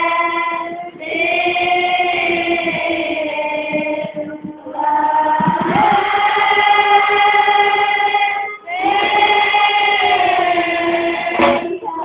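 A children's choir singing a slow song, long held notes in phrases of three to four seconds with short breaks for breath between them.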